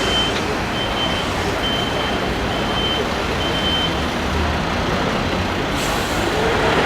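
Steady street traffic noise, with an electronic warning beeper giving five evenly spaced high beeps, about one a second, over the first four seconds.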